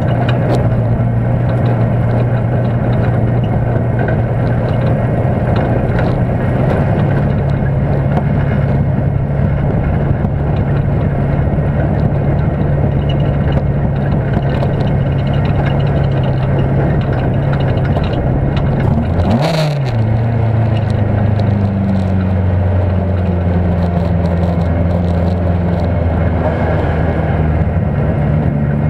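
S1600-class autocross car's engine running steadily at low to moderate revs, heard from inside the caged cabin. About two-thirds of the way through there is a sharp clunk and the engine note drops and settles at a lower pitch.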